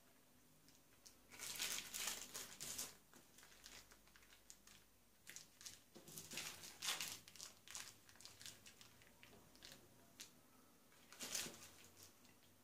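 Thin plastic sheet crinkling under the hands as it is lifted to fold dough over the cherries. The crinkling comes in three bursts: about a second and a half in, around six seconds in, and briefly near the end.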